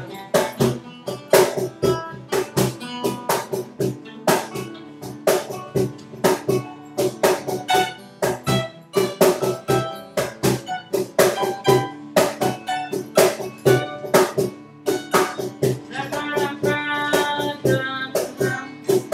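Acoustic folk instrumental break: guitar strummed in a steady rhythm, with a held melody note joining near the end.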